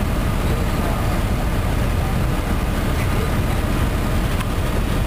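Cummins ISM inline-six diesel of a 2010 MCI D4500CT coach running steadily, a low rumble heard from inside the cabin with the air conditioning on.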